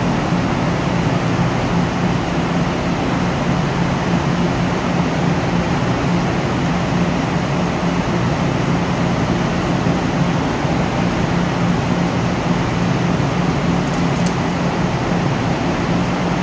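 RDC Mugunghwa diesel railcar standing at the platform with its engines idling: a loud, steady low drone with a constant hum.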